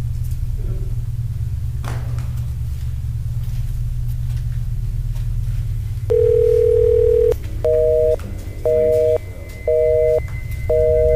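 Telephone tones: a single steady tone held for about a second, then a busy signal beeping four times, about once a second. A steady low rumble runs underneath.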